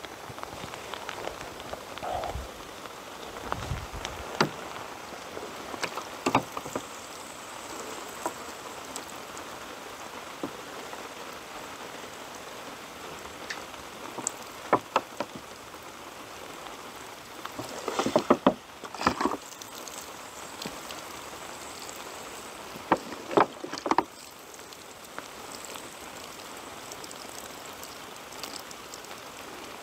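Water splashing and pattering from a plastic bottle onto loose soil, over a steady hiss with scattered sharp taps and crackles. The taps bunch up louder twice in the second half.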